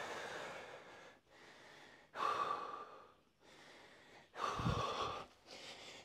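A man breathing hard just after a heavy, near-maximal barbell set: deep breaths in and out, about one a second, some louder and some softer.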